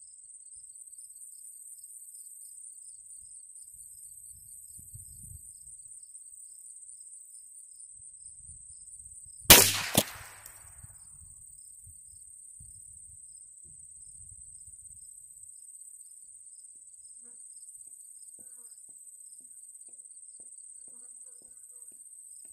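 A single shot from a Marlin .22 LR rifle firing 40-grain rounds about nine and a half seconds in, followed about half a second later by a second, shorter sharp crack; the shot knocks the tuna can off the bench. A steady high insect buzz runs underneath.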